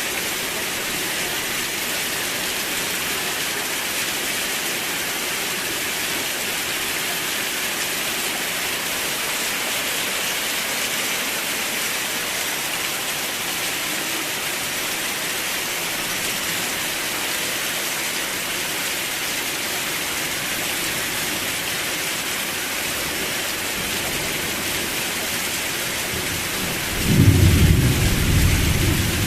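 Steady rain falling, an even hiss. About 27 seconds in, a loud low rumble of thunder breaks in and rolls on to the end.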